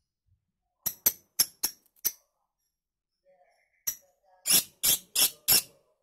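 Lovebird calling in short, shrill chirps: five quick chirps about a second in, then after a pause a run of four louder, slightly longer ones near the end, about three a second.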